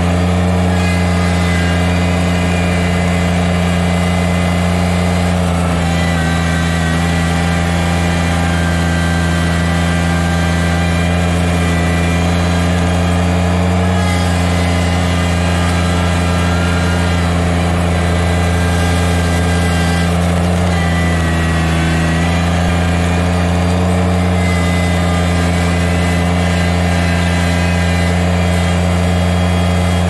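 Kubota BX subcompact tractor's three-cylinder diesel engine running steadily while the loader bucket pushes snow, its pitch shifting slightly a few times.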